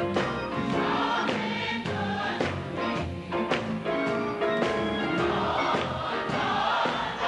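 Gospel choir singing with instrumental accompaniment and a beat.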